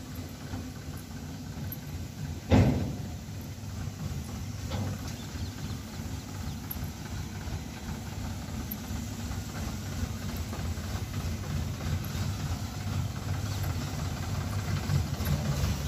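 Diesel tractor engine running as the tractor pulls its trailer closer, the low rumble growing louder toward the end. A single sharp bang stands out about two and a half seconds in.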